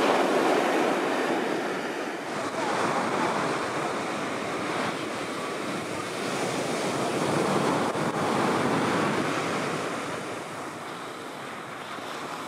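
Breaking surf and whitewater rushing in the shore break, swelling and easing in level, fading somewhat near the end.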